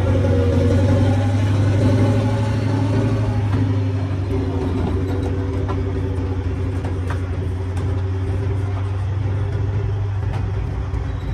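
A heavy military vehicle's engine running steadily with a deep hum, gradually growing quieter, with a few faint clicks over it.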